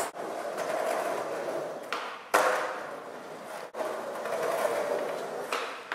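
Skateboard wheels rolling over a concrete sidewalk, with one sharp clack of the board a little over two seconds in.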